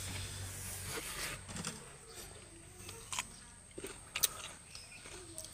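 Close-up eating sounds: scattered sharp mouth clicks and smacks of chewing. A low hum drops away about a second in.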